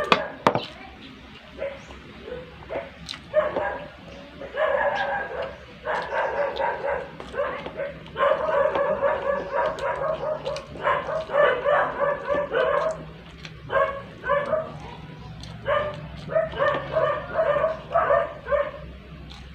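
A dog yapping in quick runs of short, high-pitched barks, with a short lull partway through.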